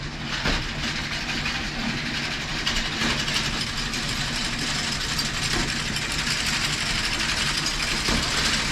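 A farm engine running steadily at an even speed.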